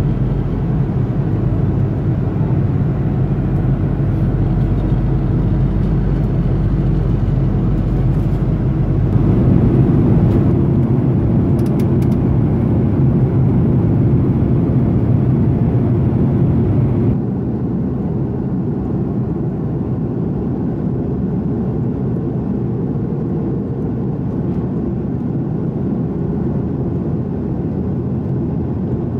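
Steady cabin noise of an Airbus A330-300 airliner in flight: engine and airflow noise heard from inside the cabin. It shifts in tone about nine seconds in and drops abruptly to a quieter steady level about seventeen seconds in.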